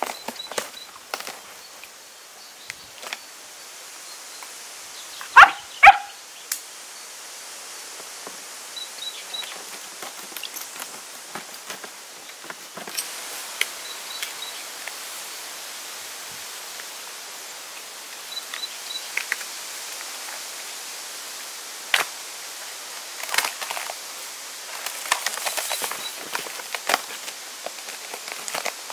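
Outdoor ambience with a steady hiss and scattered clicks and knocks. Two much louder ringing knocks come close together about five and a half seconds in, and faint high chirps come a few at a time.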